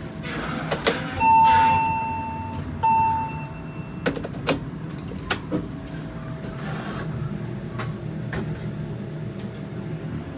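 Elevator's electronic chime sounding two tones of the same pitch, the first longer and fading, the second shorter. Under it is the steady hum of the running elevator, with a few sharp clicks afterward.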